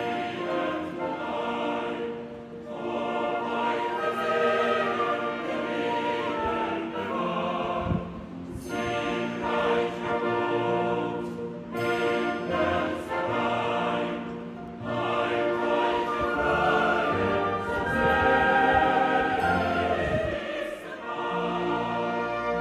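Background music: a classical piece with a choir or operatic voices singing over orchestra.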